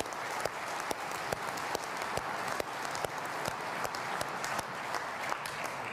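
Audience applauding in a large hall, with one person's louder, evenly paced claps close to the microphone, a little over two a second.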